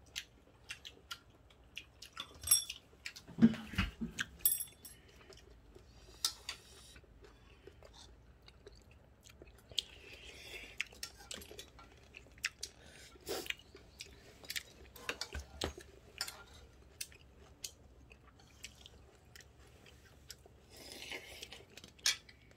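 People chewing mouthfuls of ramen noodles with stir-fried suritchwi greens, with small mouth and utensil clicks throughout. In the first five seconds there are a few louder knocks and ringing clinks of utensils against a bowl or pot.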